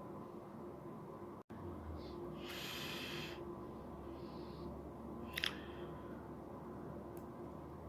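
Faint small handling noises at a workbench: a brief hissing rustle, then one sharp click about five seconds in, over a low hum. A moment of dead silence just under one and a half seconds in marks an edit cut.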